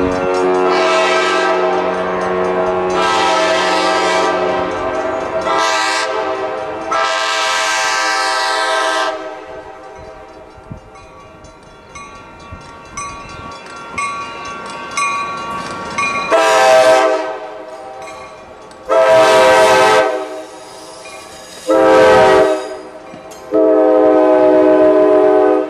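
Nathan K5LA five-chime air horn on Coaster cab car 2302, very loud, sounding a chord in a series of long and short blasts: long ones in the first nine seconds, then four more, each louder, as the train draws close and passes. Between the blasts, the wheels click over rail joints.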